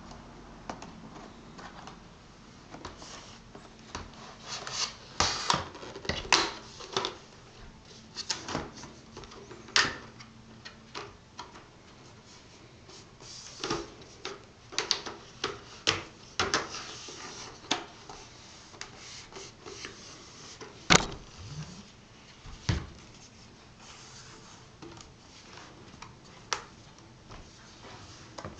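Irregular clicks, taps and rubbing from hands handling a laptop's plastic and metal parts, with one sharper click about two-thirds of the way through.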